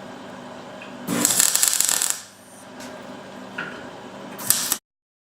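Metal tools rattling and clanking: about a second of rapid rattling about a second in, then quieter shop noise and one sharp clank near the end.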